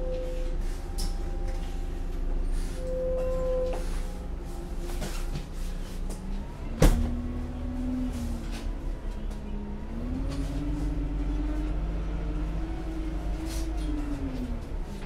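Heuliez GX 317 GNV city bus's natural-gas engine running steadily, with one sharp thump about halfway through. After the thump the engine pitch climbs as the bus pulls away, holds, then drops back near the end.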